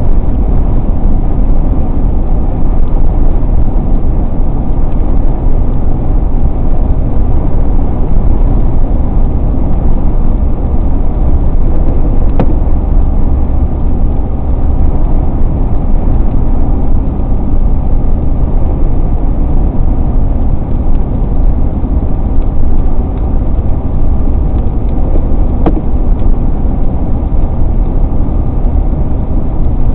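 Steady car road noise from a car on the move: a continuous low rumble of engine and tyres.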